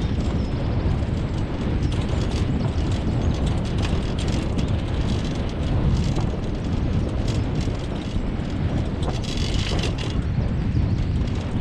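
Wheels and frame of a dog-pulled rig rolling over a rough dirt track: a steady rumble with continual small rattles and clicks.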